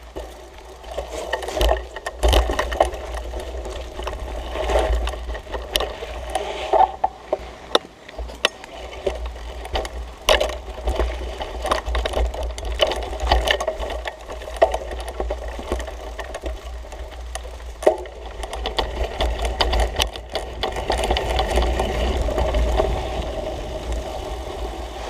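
A mountain bike ridden over a rough dirt singletrack: a constant rattle and clatter of the bike over bumps and roots, tyre noise on the trail, and a steady low rumble underneath.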